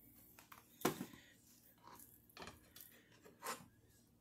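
Knife cutting raw beef chuck roast into cubes on a cutting board: a few faint, separate knocks and scrapes of the blade, the sharpest about a second in.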